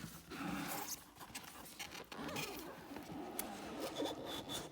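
A cardboard mystery box being torn and pulled open by hand, its packaging ripping and rustling in irregular bursts.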